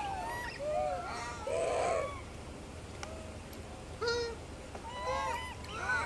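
Macaques calling: short coo calls that rise and fall in pitch, several overlapping, with a lull in the middle before more calls near the end.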